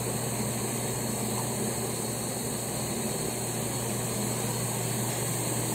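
Steady machine hum and hiss with a constant low tone, unchanging throughout.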